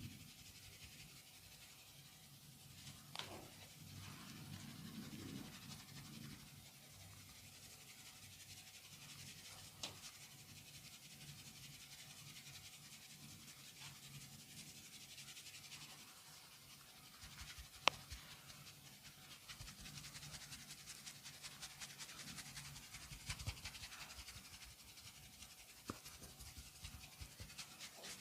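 Faint scratching and rubbing of hands during a massage, with a few sharp clicks, the loudest about two-thirds of the way through. Near the end the scratching turns into quick, repeated strokes.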